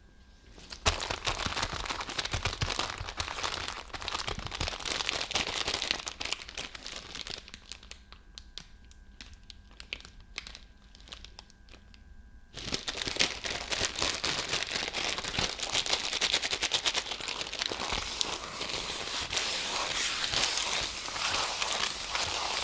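Plastic candy-bar wrapper crinkling and tearing as TWIX bars are unwrapped, in dense spells with a quieter stretch of scattered clicks in the middle.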